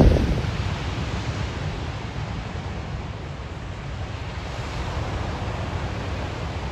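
Ocean surf washing onto a beach, a steady hiss, with a light wind rumble on the microphone.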